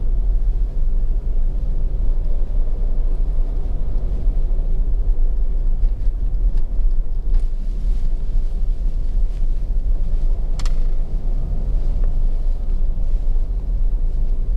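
A car driving along a road, heard from inside the cabin: a steady low rumble of engine and tyre noise. A single short sharp click about two-thirds of the way through.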